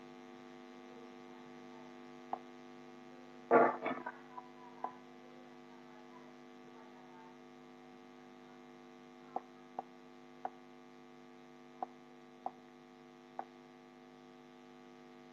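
Steady electrical mains hum, with one louder short noise about three and a half seconds in and a scattering of faint sharp clicks in the second half.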